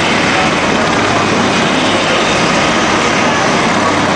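Jet aircraft flying past overhead, its engine noise a loud, steady rush with no change in pitch.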